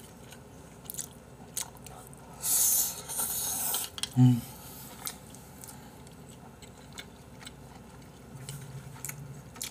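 A person eating black-bean instant noodles: wet chewing and smacking clicks, a long noisy slurp about two and a half seconds in, then a short hummed 'mm' just after.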